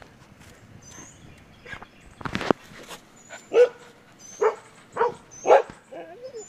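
Puppy giving four short barks in quick succession in the second half, ending in a brief wavering whine. A short scuffling noise comes a little over two seconds in.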